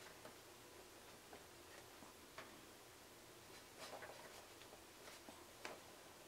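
Near silence with a few faint small clicks and scratches, clustered about two-thirds of the way through: a thin tool working at a wire connector on a circuit board.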